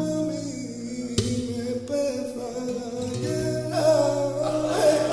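A male flamenco singer sings a soleá in long, wavering held notes, accompanied by a flamenco guitar, with a sharp guitar stroke about a second in.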